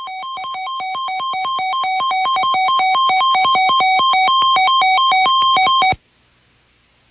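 Emergency alert attention tone: an electronic warble switching rapidly back and forth between two pitches. It swells up over the first few seconds and cuts off abruptly about six seconds in, signalling that the spoken warning message follows.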